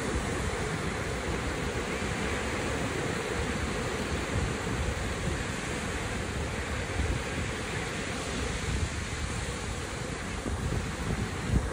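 Ocean surf breaking and washing up the shore, with wind buffeting the microphone.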